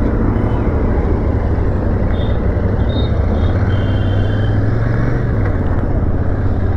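Royal Enfield Shotgun 650's 648 cc parallel-twin engine running steadily as the bike rides along in traffic, with wind and road noise. The engine note rises slightly and then drops back about five seconds in.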